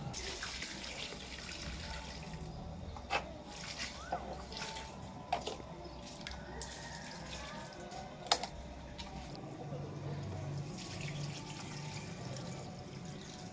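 Water poured from a plastic mug onto dry planter soil and the mug dipped back into a bucket of water, splashing and trickling, with a few sharp knocks scattered through.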